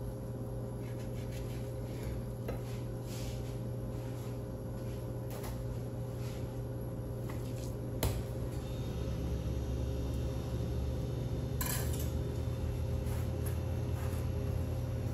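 Knife work on a plastic cutting board while filleting fish: scattered light taps and scrapes, with a sharper click about eight seconds in, over a steady low hum.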